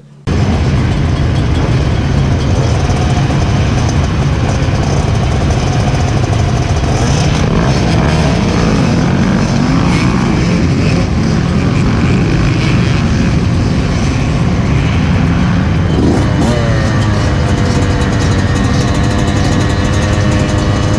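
Off-road motorcycle engine running and changing pitch with the throttle, loud and close to the microphone. About sixteen seconds in it settles to a steady, even note.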